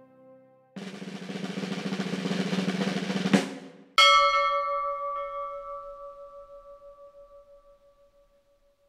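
The background music fades out, then a snare drum roll swells from about a second in and ends in a sharp hit. A bell is then struck once and rings, fading away over about four seconds.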